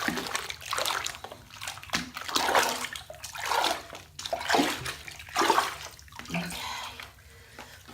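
Bathwater in a tub sloshing and splashing, stirred in irregular swishes, quieter near the end.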